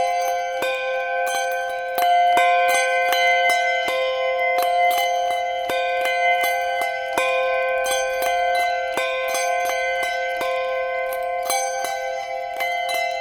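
A set of handbells rung one after another in a steady stream, about three to four strikes a second, each note ringing on and overlapping the next.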